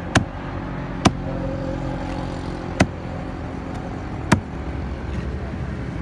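Four sharp chops of a heavy knife through a fish and into a wooden chopping block, unevenly spaced one to two seconds apart, over a steady hum of traffic.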